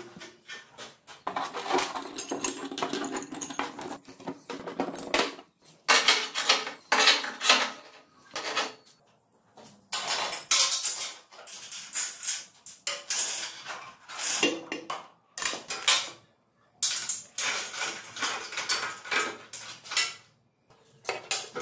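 Hand tools and steel parts clinking and clanking on a welded steel frame during assembly, in irregular bursts with short pauses.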